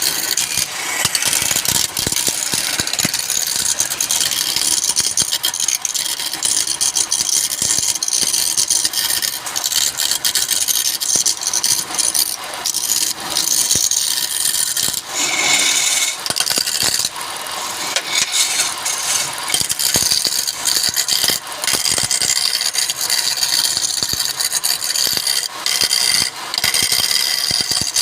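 Turning tool cutting wood spinning on a lathe: a continuous rough scraping with many small knocks and rattles.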